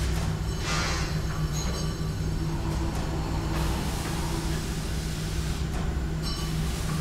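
Steady low mechanical rumble with a constant droning hum, and a brief hiss about a second in.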